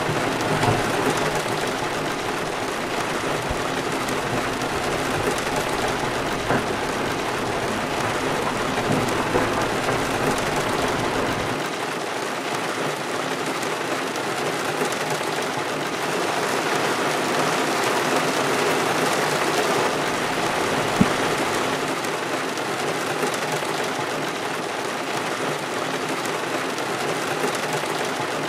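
Heavy rain falling on a car's roof and windows, heard from inside the car as a steady hiss. A low rumble under it drops away about twelve seconds in, and there is a single sharp tick later on.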